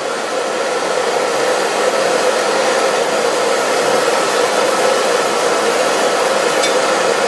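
Steady whirring of a small electric blower with an even hum, unchanging throughout.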